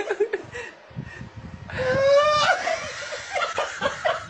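A man laughing hard: a drawn-out, wavering high-pitched laugh about halfway through, then quick, repeated bursts of laughter near the end, with some speech-like voice mixed in.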